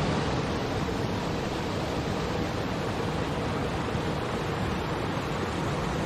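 Small waterfall cascading over rocks into a river: a steady, even splashing of falling water.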